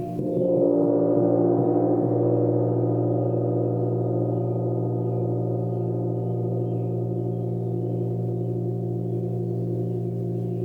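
A gong struck once near the start, its dense cluster of tones swelling and then ringing on steadily over lower sustained tones.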